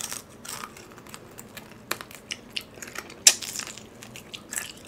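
Crunching and chewing of crispy fried chicken breading, a run of short sharp crackles with the loudest crunch about three seconds in.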